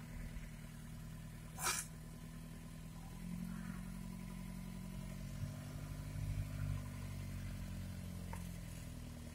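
Chevrolet LUV 4x4 pickup's engine running as it drives slowly, heard from inside the cab, the engine note growing a little stronger about three seconds in. A brief sharp noise, the loudest moment, comes about a second and a half in.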